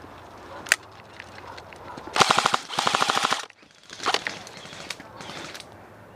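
Airsoft guns firing on full-auto: a single sharp crack, then two quick bursts of rapid shots at roughly twenty a second about two seconds in, followed by shorter, fainter bursts.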